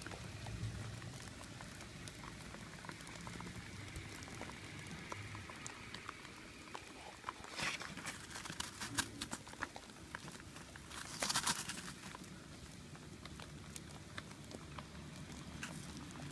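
Faint patter with scattered sharp ticks of small hailstones. A louder rattling clatter comes about eight seconds in and again around eleven seconds, as a hand digs into and scoops up the layer of hailstones.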